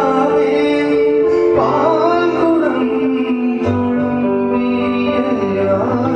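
Live acoustic music: a voice singing a melody over acoustic guitar, with long held notes.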